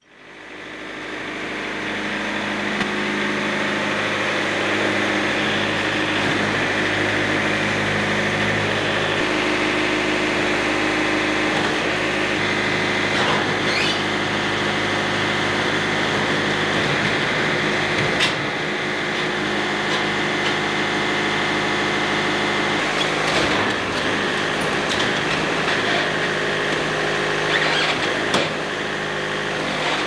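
Wood-Mizer LT70 sawmill's engine running steadily, fading in over the first couple of seconds, with a few sharp clunks as a log is loaded onto the bed and positioned.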